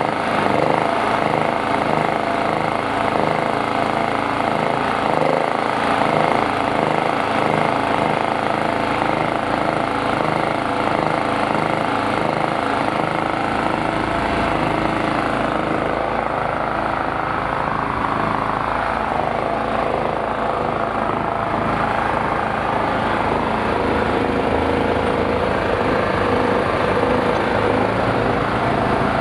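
Krisbow petrol generator's small engine running steadily, started again after its carburettor, gummed up from long storage, was cleaned.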